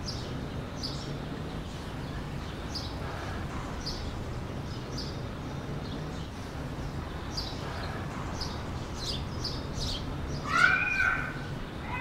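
Garden ambience with a small bird chirping, short high chirps about once a second over a low steady background. Near the end comes a louder pitched call that rises and then falls.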